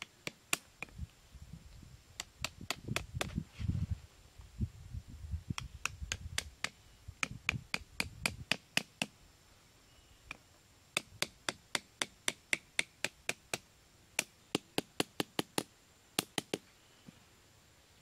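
Machete blade tapping on the bamboo sticks of a handmade bamboo bird trap: a long run of sharp, light knocks, often several a second in bursts, with a pause about halfway. Low handling noise runs under the taps in the first half.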